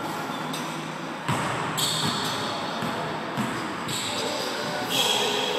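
A basketball bouncing on a hardwood gym floor during play: several sharp bounces at uneven intervals, echoing in the large hall.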